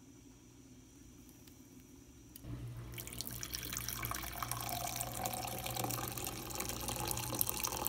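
Near silence for about two seconds, then coffee pouring from a French press into a ceramic mug: a steady splashing stream of liquid.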